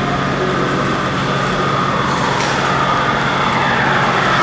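HO scale model diesel locomotive, an Athearn Genesis SD70M-2, running toward the camera with a train on the layout's track. Its running sound grows louder over the second half under a steady low hum.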